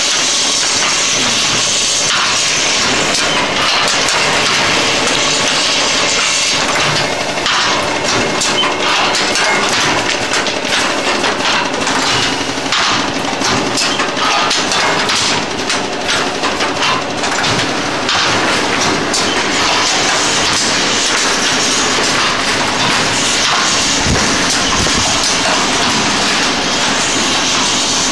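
Automatic paper-tube machinery for thermocouple tubes running: a dense, continuous mechanical clatter of rattling parts with many quick knocks, as the tubes are fed, rolled and conveyed.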